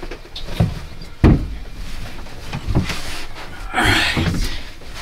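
Handling noises: a few irregular knocks and thumps, the loudest a little over a second in, and a short scraping rush about four seconds in.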